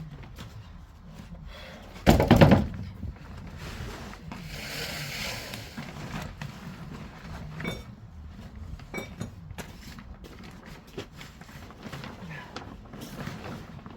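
Building work being handled: a loud rattling clatter about two seconds in, then a short hiss and scattered light knocks and scrapes.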